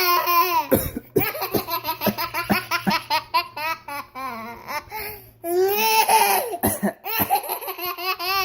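A baby laughing hard at a parent's pretend coughing. Long high squeals alternate with quick runs of belly laughs, about four or five a second.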